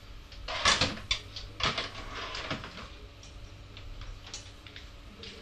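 Kitchen clatter: objects being knocked and rattled by hand, loudest about a second in and again around two seconds, then a few lighter clicks, over a steady low hum.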